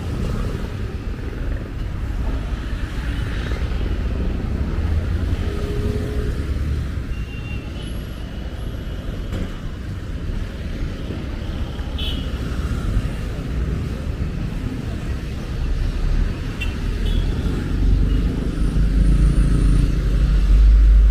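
Road traffic of cars, vans and motorbikes passing on a street: a steady low rumble that grows louder near the end.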